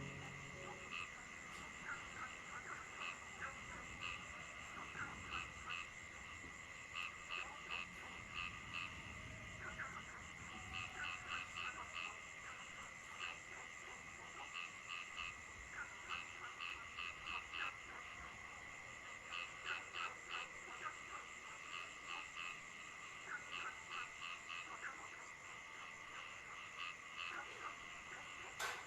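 Frogs calling in runs of short, quickly repeated croaks, over a steady high-pitched drone.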